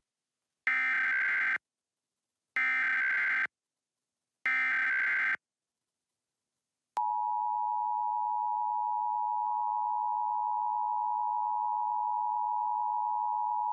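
Emergency Alert System SAME header: three bursts of warbling digital data tones, each about a second long, about two seconds apart. A second and a half after the last burst, the EAS two-tone attention signal (853 and 960 Hz together) starts about seven seconds in and holds steady.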